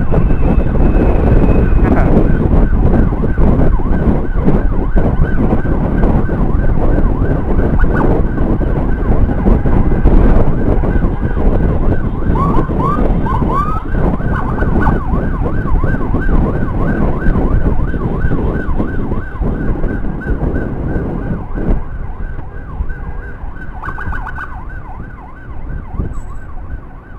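Emergency siren sounding a fast repeating warble, with a few rising whoops about halfway through, over heavy wind rush and motorcycle engine noise while riding. The rumble fades in the last few seconds.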